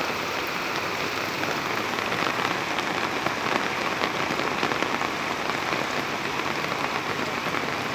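Heavy rain falling steadily: an even, dense hiss with scattered drop patter.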